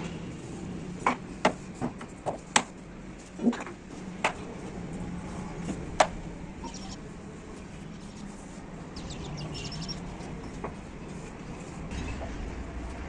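Short wooden knocks and clacks as cut softwood strips and blocks are set down and shuffled on a wooden door panel, several in quick succession in the first few seconds and then only a few faint ones. A low steady hum runs underneath.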